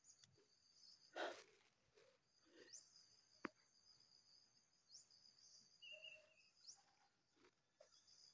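Faint, steady high-pitched chirring of crickets or similar insects in tropical undergrowth, with a few soft rustles and one sharp click about three and a half seconds in.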